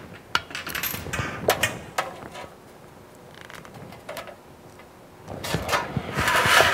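Aviation snips cutting notches into galvanized sheet steel. A run of crisp metallic snips and clicks comes in the first two seconds or so, then after a quieter moment a longer, louder stretch of cutting near the end.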